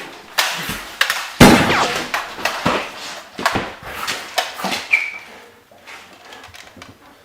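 A burst of Nerf blaster fire with foam darts smacking into things: a run of sharp, irregular bangs and knocks, the loudest about a second and a half in, dying away after about five seconds.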